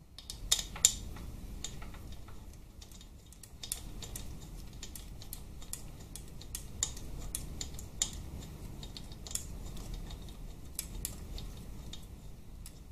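Irregular light metal clicks and taps of bolts, washers and a socket being handled and threaded in by hand while fitting the head steady bracket on a Harley-Davidson Twin Cam 88 engine. Two sharper clicks come about a second in.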